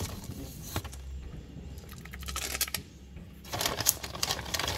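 Wire whisk clicking and rattling against the side of a mixing bowl as pancake batter is stirred, in irregular spurts that stop for a couple of seconds in the middle.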